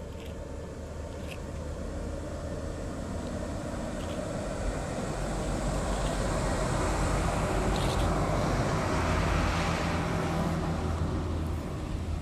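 Two-car electric rack-railway train of the Drachenfels Railway passing close by below, its running noise building steadily to a peak about nine seconds in and then easing off.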